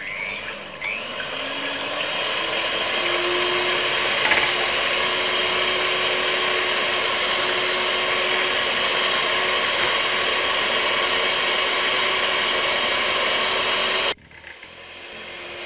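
Electric hand mixer beating raw eggs in a glass measuring jug: the motor winds up over the first couple of seconds, then runs at a steady whir, and cuts off sharply near the end.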